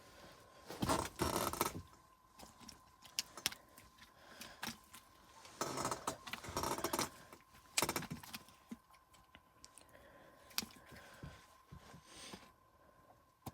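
Small fishing gear handled by hand, rattling and jingling in two longer bursts with scattered sharp clicks between them, over a faint steady tone.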